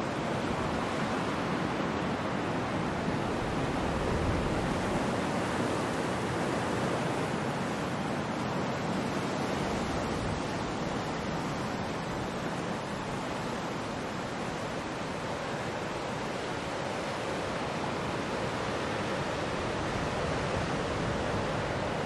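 Ocean surf washing in as a steady, even wash of waves, swelling slightly about four seconds in.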